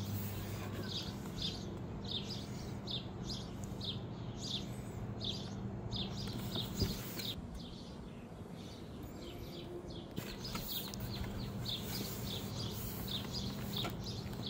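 A small bird chirping over and over, short high calls that drop in pitch, about one or two a second, with a pause of a few seconds partway through. A steady low hum runs underneath.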